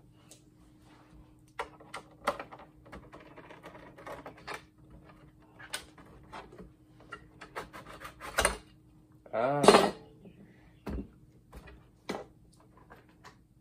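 Scattered clicks, taps and knocks of hands and tools working on the casing and parts of an old monitor being taken apart, with one sharper knock about two-thirds through. A brief vocal sound from a person follows just after that knock.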